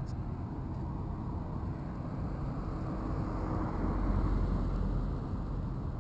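Steady low rumble of outdoor street background noise, swelling slightly about two-thirds of the way through, with no distinct events.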